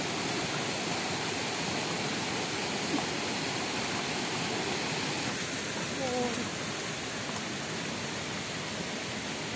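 Steady rush of running water, with a brief faint voice about six seconds in.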